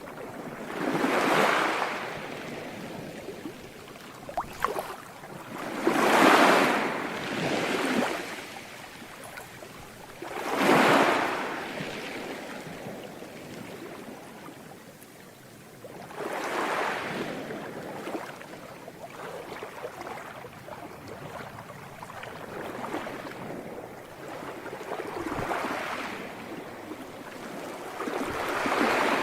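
Sea waves breaking on a shore, each wave swelling into a rush of surf and washing back, about every four to five seconds over a steady background wash.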